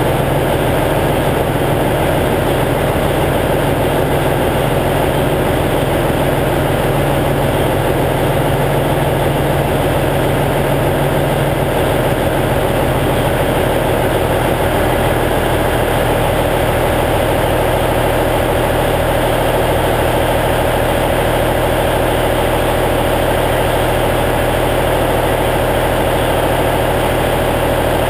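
Cummins N14 inline-six diesel in a semi truck, idling steadily while it warms up after a cold start.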